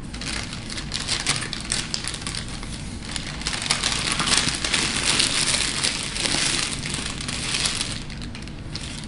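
Paper sandwich wrapper crumpled and folded by hand: a dense crackling that swells to its loudest midway and dies down near the end.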